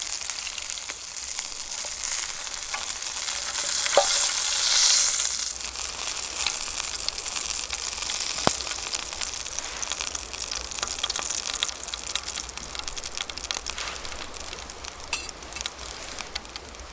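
Food sizzling steadily in a pan over a campfire, with small crackles throughout. The sizzle swells briefly about four seconds in, and there are a couple of sharp ticks.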